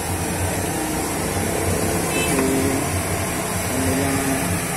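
Steady low rumbling noise with no clear events, and faint short pitched tones about halfway through and again near the end.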